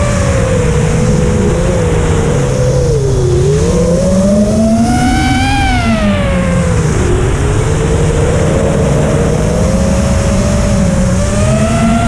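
Electric motor and propeller of a small FPV RC aircraft whining steadily, the pitch rising and falling over a few seconds at a time as the throttle changes, with wind rushing over the airframe.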